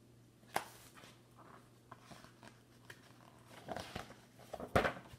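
Faint paper rustling and soft handling clicks as a picture book's pages are turned, the loudest rustle near the end.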